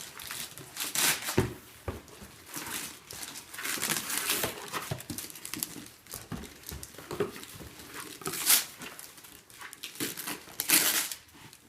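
Wrapping paper being torn and crumpled as a present is unwrapped, in irregular rustling bursts with a couple of louder rips near the end.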